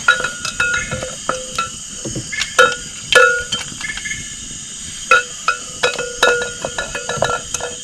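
A metal utensil clinking and knocking irregularly against a metal cooking pot over a campfire, each strike ringing briefly; the loudest knocks come about a third of the way in. A steady high insect drone runs underneath.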